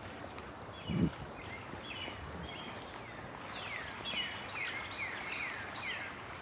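A small bird calling a series of short chirps, the later ones quick falling notes at about two a second. There is a single low thump about a second in.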